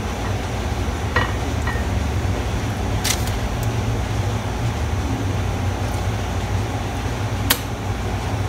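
A steady low hum with a few light clinks of a ceramic plate on a tiled counter, the sharpest about three seconds in and another near the end.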